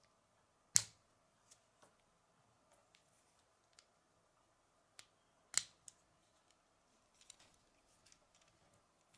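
Small Lego wheels snapped onto a mini Lego car: two sharp plastic clicks, one about a second in and one about five and a half seconds in, with lighter plastic clicks and handling between and after.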